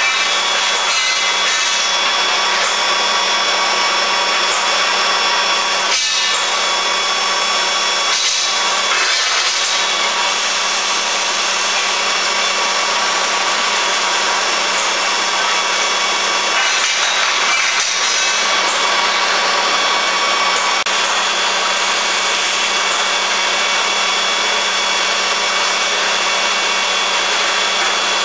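Steady machinery noise of a steel pipe painting line: a constant loud hiss with a steady hum running through it, and a few faint knocks.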